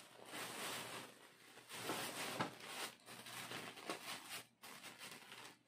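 Quiet rustling of plastic bags and gear being handled and packed into a backpack, with a few small knocks.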